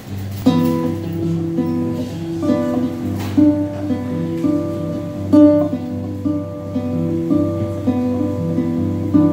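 Solo acoustic guitar playing an instrumental intro without voice: picked notes ringing over a steady bass note, coming in about half a second in.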